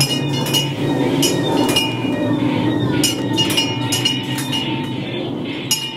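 Ride sound effects in a mine scene: irregular metallic clinks, some ringing briefly, over a steady low rumble that starts just before.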